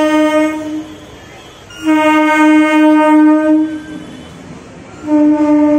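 Eastern Railway EMU local train sounding its horn in long steady blasts as it passes: one blast ends under a second in, a second lasts nearly two seconds, and a third starts near the end.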